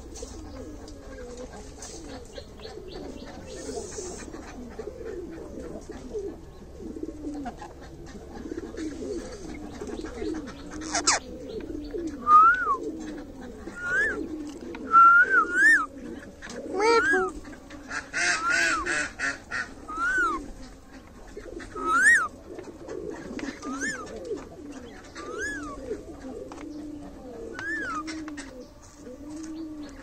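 Rose-ringed parakeet calling: short whistled notes that rise and fall, repeated every second or two from about twelve seconds in, with a harsher squawk at about eighteen seconds. A continuous low warbling of bird calls runs underneath.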